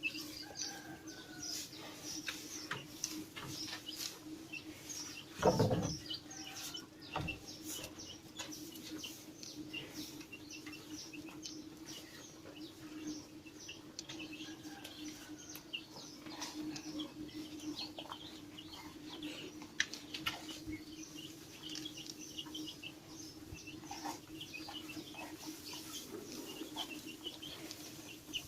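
Many birds chirping in short, high calls throughout, over a steady low hum, with one louder, lower sound about five and a half seconds in.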